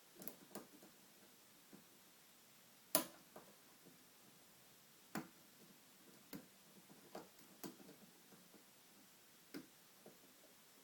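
Faint, irregular small metallic clicks and ticks of a hook pick and tension wrench working the pins inside a pin-tumbler lock, with one sharper click about three seconds in.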